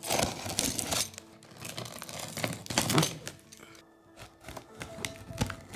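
A utility knife slicing through packing tape and plastic stretch wrap on a cardboard box, in scraping, crinkling bursts, the loudest about three seconds in, with a few sharp clicks near the end.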